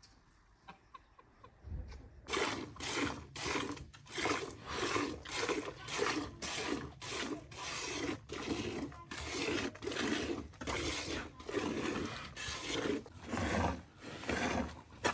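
A cow being milked by hand: rhythmic squirts of milk, about two a second, starting about two seconds in.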